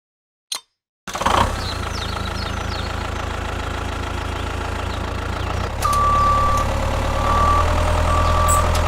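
A heavy vehicle engine starts up suddenly about a second in and runs steadily with a deep low hum. A high steady beep sounds three times over its last few seconds.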